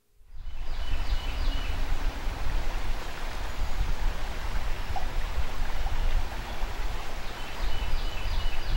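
Flowing river water with wind buffeting the microphone, a steady rushing hiss over a heavy low rumble that fades in over the first half second.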